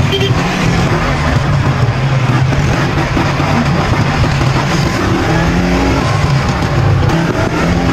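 A small off-road vehicle engine running steadily, as on an ATV or go-kart ride.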